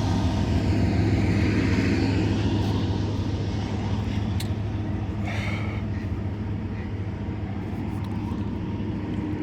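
A passing train: a steady low rumble that slowly fades.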